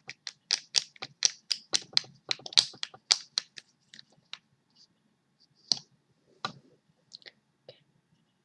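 A quick run of sharp clicks or taps on something hard, about three or four a second, lasting roughly three and a half seconds. A handful of scattered clicks follows, the loudest of them near the middle.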